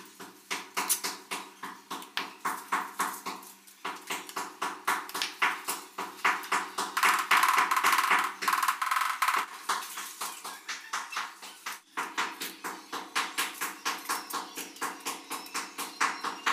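Rubber mallet tapping ceramic wall tiles in quick succession, about three to four knocks a second, setting them into place on the wall.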